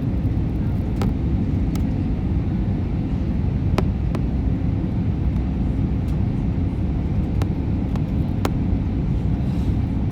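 Steady low rumble of a jet airliner in flight, heard from inside the passenger cabin, with a faint steady hum and a few sharp clicks.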